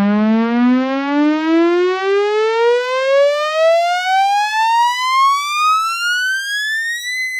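Siren-like rising-pitch sound effect: one buzzy tone climbs steadily and evenly over about seven seconds, then levels off and holds at a high pitch near the end.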